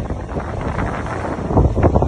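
Storm wind buffeting the microphone, loud and gusty, with a heavier gust about a second and a half in; surf from the high tide lies under it.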